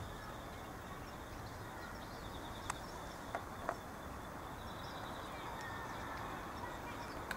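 Steady outdoor background hiss with a few short, faint clicks about halfway through.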